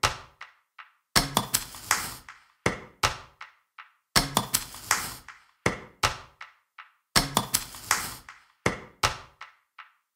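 Irregular clusters of sharp knocks and taps, each dying away quickly, with silent gaps between the clusters.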